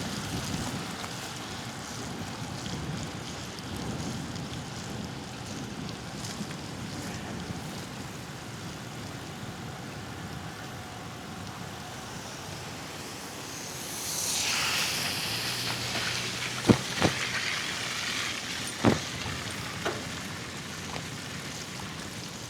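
Steady wind and road noise of a bicycle riding on wet, slushy city streets. About fourteen seconds in, a loud hiss swells and fades, and a few sharp knocks follow.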